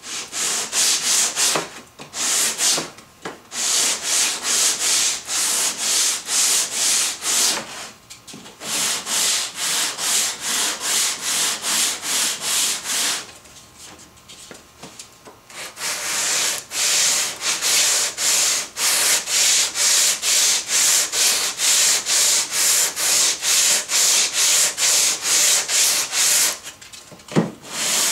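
Hand sanding block with sandpaper rubbed back and forth along the edge of a wooden board: runs of scratchy strokes, about two a second. There is a break of a couple of seconds around the middle and a shorter one near the end.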